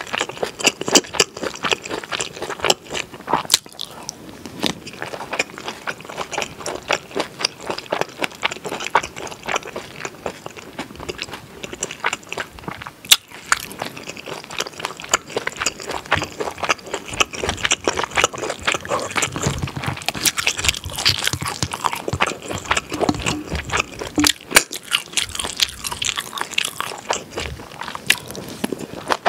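Close-miked mouth sounds of someone eating spicy pork and kimchi stew: steady wet chewing and crunching with many small smacks and clicks, and a few louder clicks along the way.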